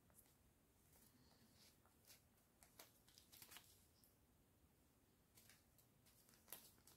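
Near silence with a few faint rustles and clicks, a cluster about two to three seconds in and one more near the end: a small zip bag of round diamond-painting drills being handled.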